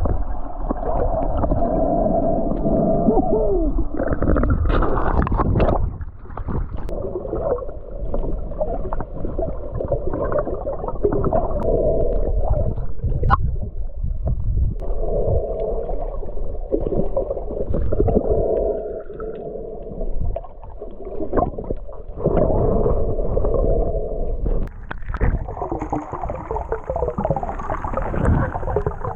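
Muffled water gurgling and rumbling heard by a submerged camera, coming in uneven surges every second or two.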